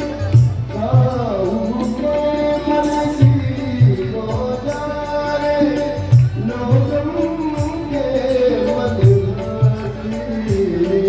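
Indian devotional song: a voice singing a gliding melody over a steady low drum beat.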